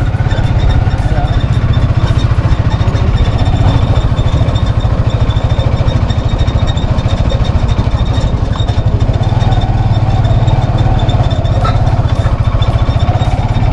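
Motor vehicle engine running steadily while riding along, with a fast, low pulsing throb, heard from on board.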